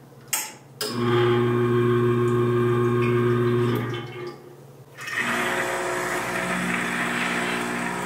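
The espresso machine pumps of the Lelit Bianca (rotary) and the Rocket Appartamento (vibratory) run one after the other for comparison. First comes a steady, even hum lasting about three seconds. After a short pause, a second, quieter pump sound with more hiss in it starts and carries on.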